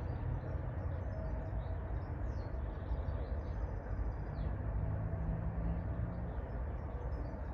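Distant rescue helicopter's steady low rotor and engine drone, with birds chirping faintly on top.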